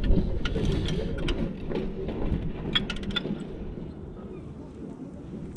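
Socket ratchet with a long extension turning a brake caliper bolt: scattered ratchet clicks and light metal knocks that die away after about three and a half seconds.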